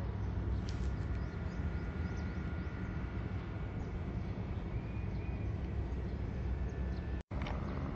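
Wind buffeting the microphone: a steady low rumble, with a faint thin whine above it through the middle and a split-second dropout near the end.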